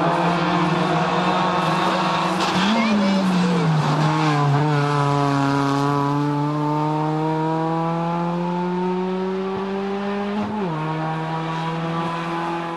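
Rally car engine at full stage pace: a quick blip and fall of revs about three seconds in, then one long rising pull as the car accelerates away, with an upshift that drops the note about ten and a half seconds in.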